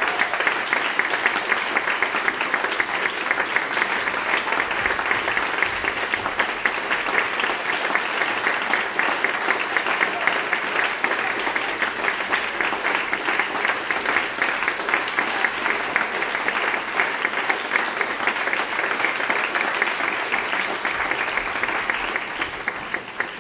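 Audience applauding: a dense, steady clatter of many hands clapping that tapers off near the end.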